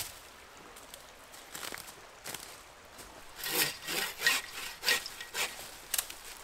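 Bow saw cutting through a fallen dead pole. Back-and-forth strokes start about halfway in, roughly two a second.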